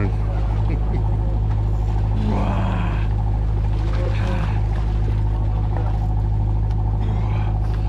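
Steady low hum of the mothership's engine running, with faint voices in the background.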